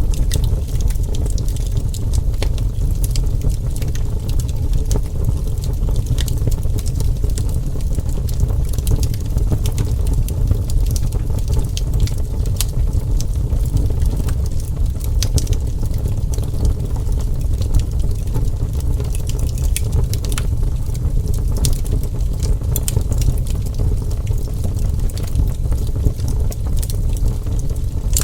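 Wood fire burning steadily: a continuous low rumble of flames with frequent small sharp crackles and pops from the burning wood.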